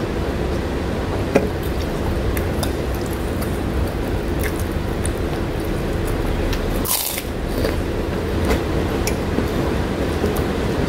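Steady hiss of heavy rain, with small wet clicks and smacks of rice and fish being eaten by hand close to the microphone. A brief sharper hiss comes about seven seconds in.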